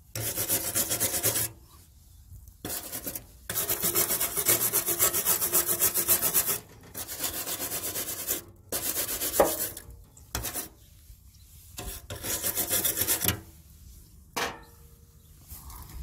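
Wire brush scrubbing rust off seized, rusted bolts on a lawn mower deck: several runs of quick back-and-forth strokes, each a second or a few seconds long, with short pauses between.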